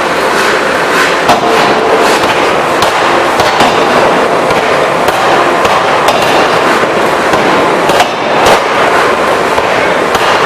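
Electro-hydraulic open die forging hammer working: sharp knocks at uneven intervals, roughly one a second, over a loud, steady din.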